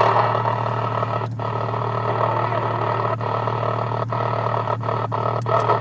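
CB radio static hissing from the speaker, cut by several brief dropouts, over the steady idle of a 1994 Jeep Grand Cherokee's inline-six engine.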